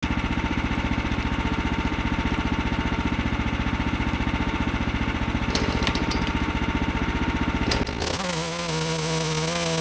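A small engine running with a fast, even firing pulse; about eight seconds in the sound changes to a steadier, higher whine with a hiss.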